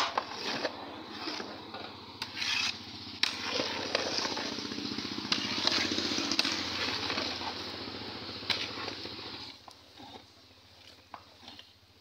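Long-handled paddle stirring a large metal pot of cooking biryani: a steady rough churning with irregular scrapes and knocks against the pot. The stirring stops about two seconds before the end.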